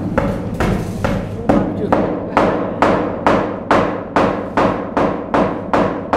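Steady hand-hammer blows, about two a second, each with a short ringing decay: a hammer striking a tool held against a shipping container's floor during repair work.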